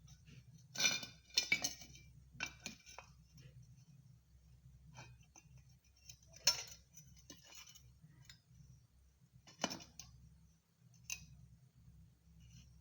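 Light metallic clinks and taps at irregular intervals, as of steel square pipe and hand tools being picked up and set down, over a faint steady hum.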